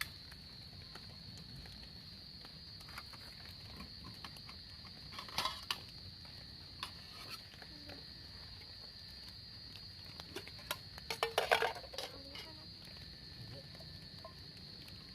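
Steady, high-pitched chorus of forest insects such as crickets, with a few clattering knocks about five seconds in and a quick run of them around eleven to twelve seconds.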